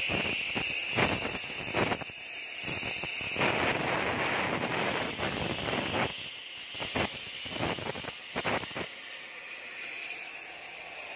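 Oxy-fuel cutting torch hissing steadily as it cuts into an excavator's steel track chain, with louder rushing spells and a few sharp metal clicks.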